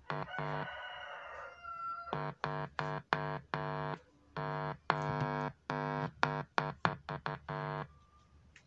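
Buzzing hum from speakers driven by a TPA3116D2 amplifier board, cutting in and out in a choppy run of bursts while the unconnected 3.5 mm input plug is handled: the open input picking up hum. It stops near the end.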